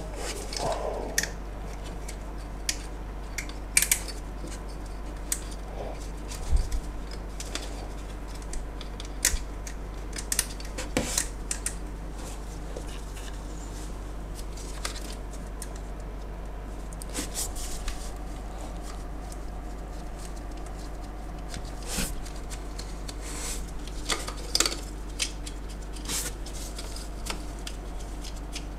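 Irregular metallic clicks and clinks of hand tools working on the alternator mounting bolts in an engine bay, some in short quick runs, over a low steady hum.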